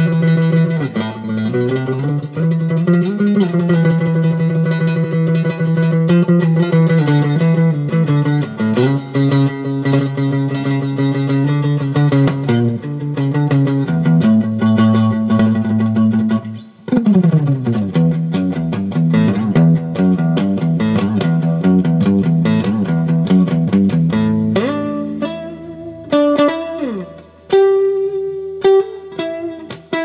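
1979 Hohner thinline Telecaster electric guitar played through a Peavey Classic Chorus 212 amplifier with reverb and no other effects: sustained picked chords with string bends, then after a brief break about 17 s in, quicker single-note runs that thin to sparse notes near the end.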